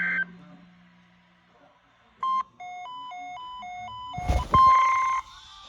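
Electronic emergency-alert broadcast tones. A steady tone cuts off just after the start and a short pause follows. Then come a short beep, a quick alternating high-low electronic warble for about a second and a half, and a louder burst of steady tone near the end.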